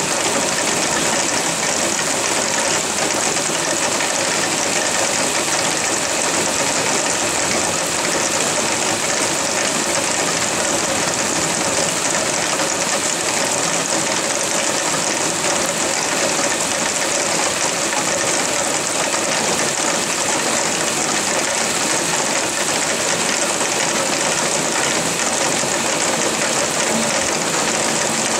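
Heavy rain falling, a steady dense hiss that does not let up.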